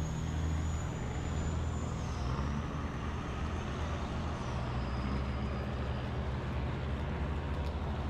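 A large diesel engine running steadily with a low hum, with a faint high whine that drops in pitch a little after two seconds in and fades out.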